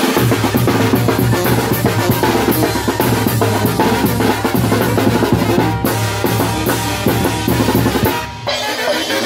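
Brass band's percussion section playing a fast, driving beat on snare drum, cymbals and a bass drum with a cymbal mounted on top. There is a short break a little before the end.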